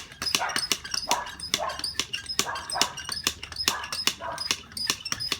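Hand bicycle pump inflating an inner tube: repeated strokes, each a short rush of air, with sharp clicks and rattles in between.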